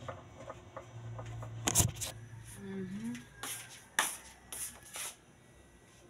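Handling noise from a hand-held phone being moved: a few sharp clicks and knocks, the loudest early on, with a short low hum-like tone about halfway through.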